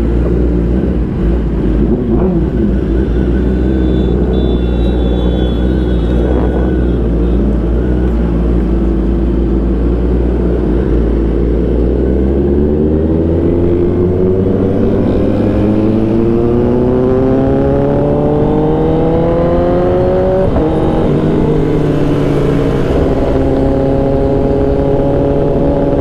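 Kawasaki ZX-10R inline-four with an aftermarket exhaust, heard from the rider's seat. It runs steadily at low speed for the first half, then the engine note climbs steadily under acceleration, drops briefly at a gear change about 20 seconds in, and climbs again.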